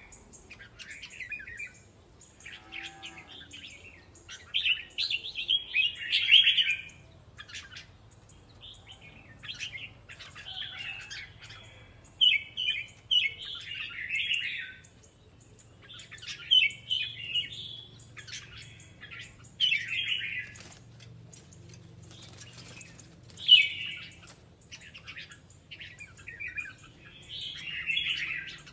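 Three caged red-whiskered bulbuls singing against each other, trading short bursts of bright, chirpy song every second or two.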